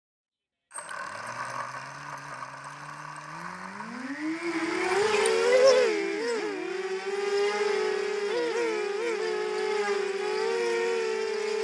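Racing quadcopter's brushless motors and propellers: a low steady hum starts abruptly about a second in, then spins up into a rising whine a few seconds later and settles into a steady higher-pitched hover buzz, with brief wavers in pitch as the throttle is corrected.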